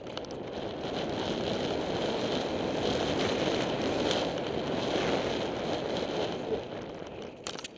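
Wind rushing over the microphone of a mountain bike descending a dirt trail at speed, with tyre noise and the rattle of the bike, and a few sharp clicks near the end.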